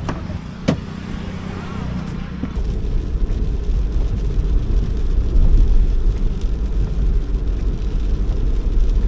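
Steady low rumble of a car on the move, setting in abruptly about two and a half seconds in, after a sharp click about a second in.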